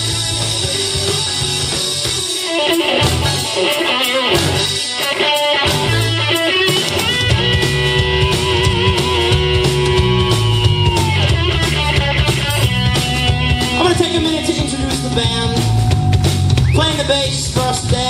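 Live rock band playing: electric guitars, bass guitar and drum kit. The drums come in about two seconds in, and the bass joins a few seconds later under held guitar notes.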